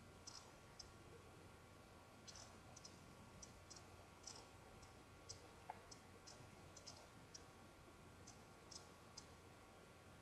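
Near silence with faint, irregular small clicks at the lips, about two a second, as a lip liner pencil is worked along them.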